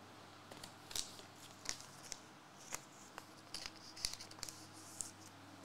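Faint, scattered clicks and rustles of trading cards and their wrapping being handled.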